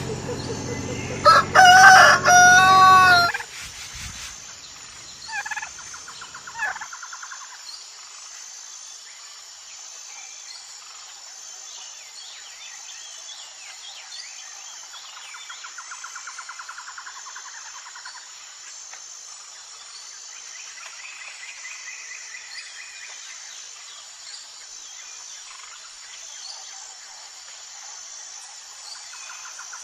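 A rooster crows once, a loud call lasting about two seconds that starts a little over a second in, over a low hum that cuts off just after it. After that only faint chirps are heard over a steady high background tone.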